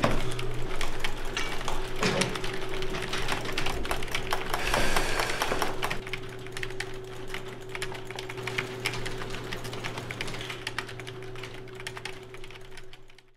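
Computer keyboards being typed on, a fast clatter of key clicks, over a steady low hum. The clicking thins out and grows quieter after about six seconds.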